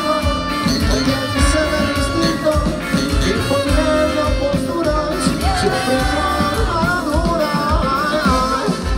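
Argentine ska-rock band playing live, with singing over a steady beat, heard from within the audience.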